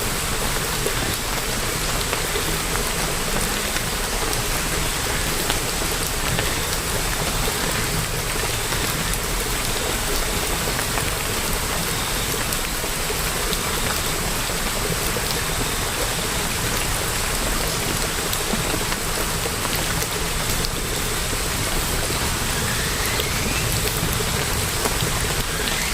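Steady rainfall: an even hiss of rain, with many small drops tapping.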